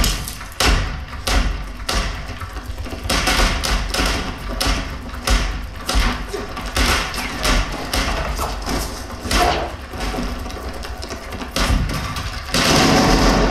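War-film soundtrack played through a small 3D-printed 5.1 speaker system with a Tang Band 6.5-inch paper-cone subwoofer, heard in the room: repeated sharp gunshots and deep bass thuds. The sound gets louder and denser near the end.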